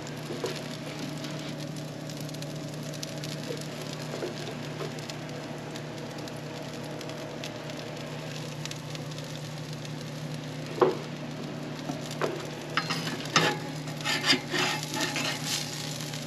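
Fish fillets on cedar planks sizzling and crackling over hot charcoal in an open grill. In the last few seconds a metal spatula clicks and scrapes against the grill grate as it works under a plank.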